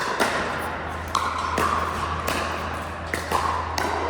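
Pickleball paddles striking the hard plastic ball, with ball bounces: sharp, ringing pops at an irregular pace, several times, over a steady low hum.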